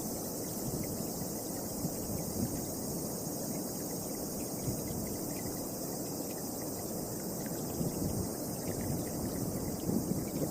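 Wind blowing in gusts, rumbling and buffeting low down, over a steady high-pitched hiss. The wind grows stronger near the end.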